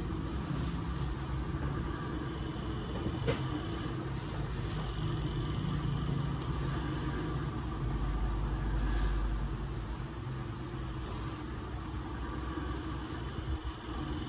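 A steady low rumble in the background, swelling slightly about two-thirds of the way through. Over it are faint, short scrapes of a metal cuticle pusher working along the edge of a toenail, with one sharp click about three seconds in.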